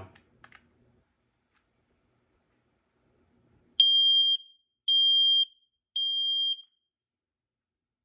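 Performax smoke alarm's piezo horn sounding on its test button: three high-pitched beeps, each about half a second long and spaced about a second apart, starting about four seconds in. It is pretty loud.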